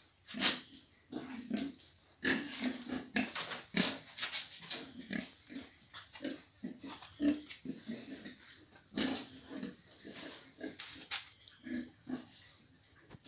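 Several pigs grunting, many short grunts in quick, irregular succession.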